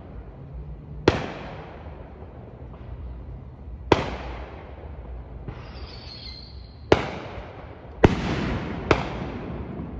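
Fireworks bursting in the sky: five sharp bangs, each followed by a rolling echo, the last three in quick succession. A high whistling hiss rises between the second and third bangs, and a dense crackle follows the fourth.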